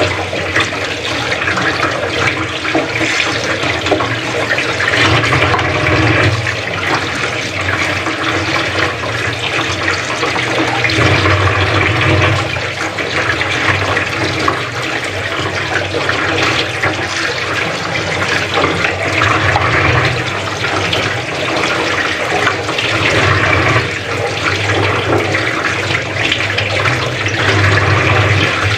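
Tap water running steadily into a sink and splashing over hands rinsing and rubbing fish under the stream.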